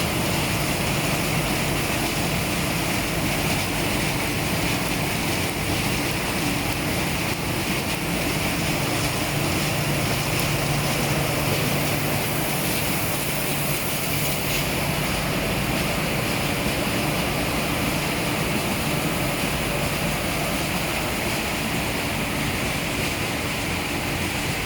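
Roll-fed flatbed die cutting machine running steadily: a constant mechanical drone with a low hum and a hissing upper band, with no break or change.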